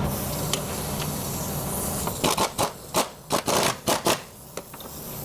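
A ring spanner working an engine-mount bolt tight, giving a quick run of about eight metallic clicks and scrapes from about two seconds in, lasting about two seconds, over a steady hiss.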